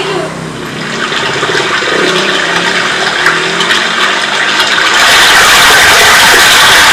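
Loud rushing, whooshing sound effect played over the theatre's speakers. It builds steadily, then swells suddenly to a much louder, fuller roar about five seconds in.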